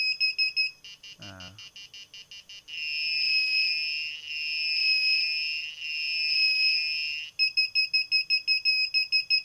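Piezo buzzer of a DIY lost-model alarm for an RC plane sounding its alert: a fast run of shrill beeps, then fainter ticking pulses, then three long swelling tones, then fast beeping again near the end.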